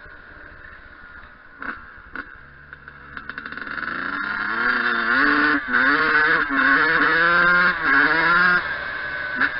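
Yamaha YZ125 two-stroke dirt bike engine. It is low for the first few seconds, with a couple of knocks, then grows louder from about four seconds in and revs hard, its pitch climbing again and again with brief dips between.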